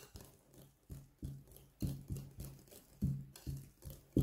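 Wire hand whisk beating whipped cream into pastry cream in a glass bowl. It makes short, regular strokes, about three a second.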